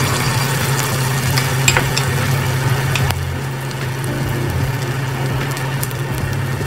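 Flour-coated chicken nuggets sizzling as they are dropped one by one into hot oil in a stainless-steel pot, with a few sharp clicks over a steady low hum.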